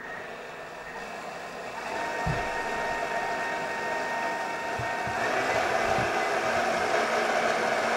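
Kitchen blender motor running as it mixes a liquid drink. The sound grows louder in steps about two and five seconds in, with a few short low thumps.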